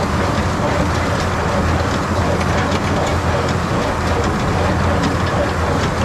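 New Idea square baler running behind an Allis-Chalmers 200 tractor, picking up and packing hay: a steady low tractor-engine drone under a constant rattling clatter from the baler's pickup and plunger.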